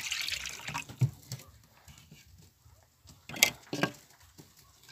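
Rustling for about the first second, then scattered knocks and clicks around a wooden rabbit hutch, the sharpest a pair of clicks about three and a half seconds in.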